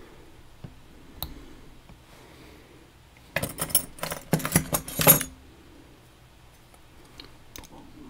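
Small metal parts clicking and rattling as a pin-tumbler lock and its picking tools are handled: a few single clicks, then a dense burst of clattering for about two seconds in the middle, then a couple more clicks near the end.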